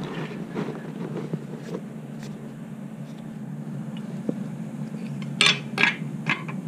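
A steady low hum, with three or four light sharp clicks about five to six seconds in.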